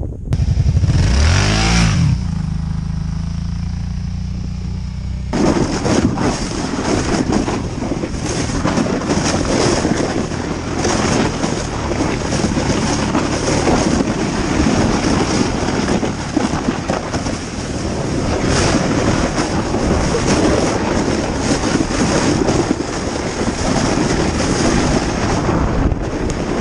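Kawasaki Brute Force ATV towing a toboggan over snow. For the first few seconds the engine is heard on its own, its note rising and falling and then steady. About five seconds in, a loud rough rushing of the sled over snow and wind on the microphone begins and covers the engine.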